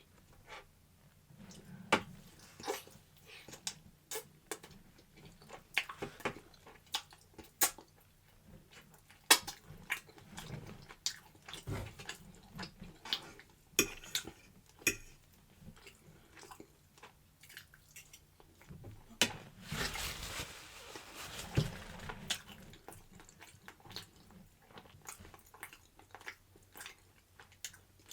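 Kitchen preparation sounds: scattered sharp clicks and knocks of utensils against dishes, with a few seconds of louder rustling or rubbing about twenty seconds in.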